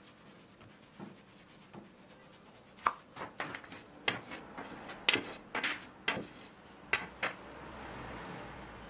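Long thin wooden rolling pin knocking and clacking against a wooden board in a string of sharp taps while thin dough is rolled out, then a soft rustle near the end as the dough sheet is lifted on the pin.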